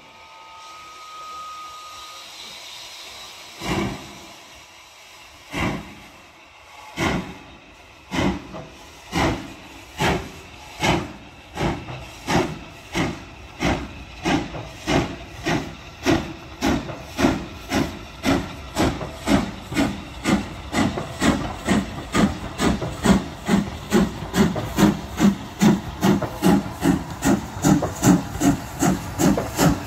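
Steam locomotive No. 32424, an LB&SCR H2 Atlantic 'Beachy Head', starting a train from standstill: after a short whistle, the chuffs of its exhaust begin slow and heavy, about two seconds apart, and quicken steadily to about two a second, growing louder as the engine gathers speed.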